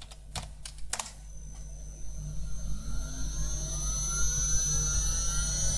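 A few computer keystrokes, then an HF spindle motor spinning up toward 12,000 RPM on its frequency converter's ramp. It is a whine that rises steadily in pitch and grows louder.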